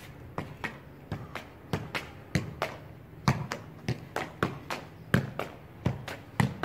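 A football being juggled: a quick, fairly regular run of dull thuds as the ball is kept up off the foot and thigh, about three touches a second.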